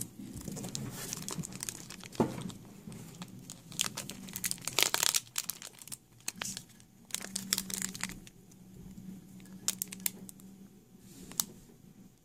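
Foil Pokémon card booster pack crinkling in the hands and being torn open: a run of irregular sharp crackles, loudest about five seconds in.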